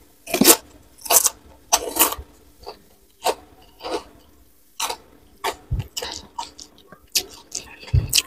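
Close-miked chewing of crunchy fried food eaten by hand, irregular crisp crunches about once or twice a second.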